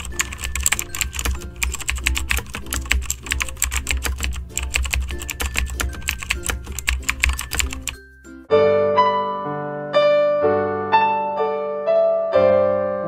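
Rapid computer-keyboard typing sound effect over background music. After about eight seconds the typing stops and a piano melody begins.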